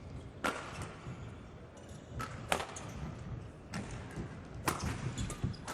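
Badminton rackets striking a shuttlecock in a rally: several sharp hits about one to two seconds apart.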